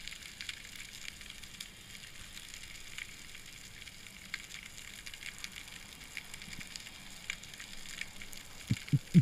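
Underwater crackling of a rocky reef: a steady mass of fine clicks, typical of snapping shrimp. Near the end come two loud, short, low thumps.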